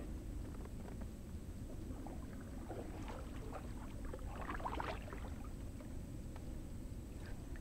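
Kayak paddle dipping and pulling through calm creek water, with a cluster of small splashes and drips between about three and five seconds in, over a steady low rumble.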